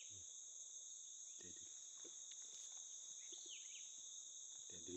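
Steady chorus of insects, crickets among them, a continuous faint high-pitched trill that does not change.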